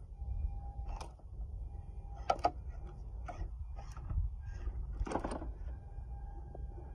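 Axial SCX24 1/24-scale RC crawler's small electric motor and geared drivetrain whining faintly as it crawls over rocks, with several sharp clicks and scrapes of the tyres and chassis against the stone.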